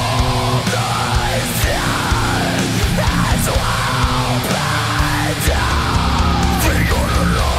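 Heavy metal band recording, distorted guitars and drums playing loud and without a break. The low end changes about five and a half seconds in.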